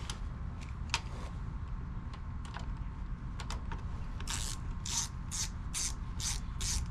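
Ratchet wrench being worked in short back-and-forth strokes: a few scattered clicks, then from about four seconds in a regular run of rasping ratchet strokes, about two a second.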